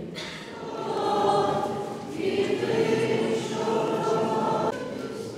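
A choir singing long held chords. The sound changes abruptly near the end, like an edit.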